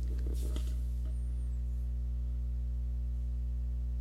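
Steady low electrical hum with a faint buzz, carried on the microphone signal; a few faint clicks in the first second.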